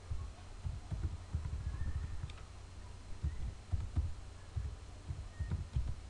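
Computer keyboard typing, heard mostly as irregular clusters of dull low thumps with a few faint clicks, over a faint steady hum.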